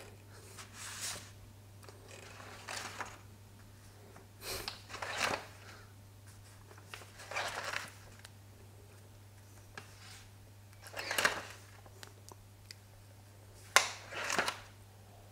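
Scattered crunching and rustling handling noises, about eight short bursts with one sharp click near the end, in a quiet room over a faint steady low hum.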